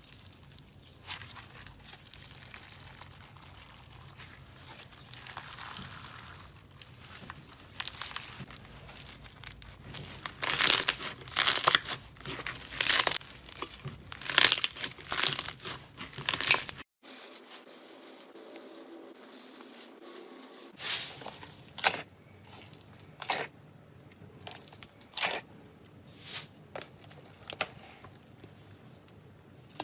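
Slime being pressed and worked by hand, giving crackling and popping clicks that come thick and loud in the middle, stop short just after, and return sparser near the end.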